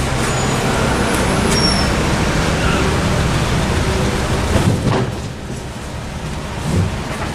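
Street traffic: a steady rumble of passing road vehicles that eases off about five seconds in.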